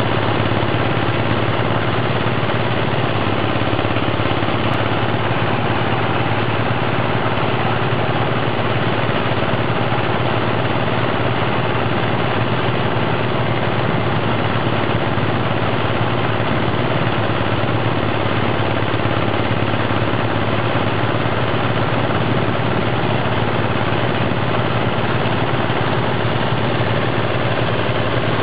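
Small single-cylinder diesel engine running steadily, driving a rice thresher as rice straw is fed into its drum. The sound is loud and even throughout, with no change in speed.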